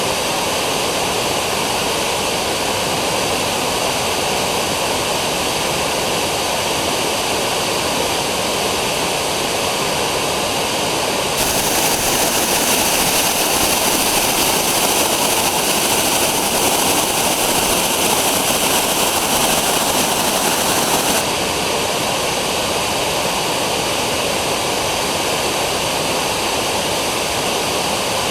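Dzhuryn waterfall rushing, a loud, steady roar of falling water. For about ten seconds in the middle it jumps abruptly louder and brighter, then drops back.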